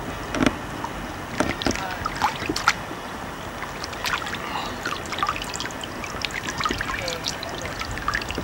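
Water splashing and dripping in shallow water as a large mirror carp is dipped in and lifted out, with many short, sharp splashes scattered irregularly.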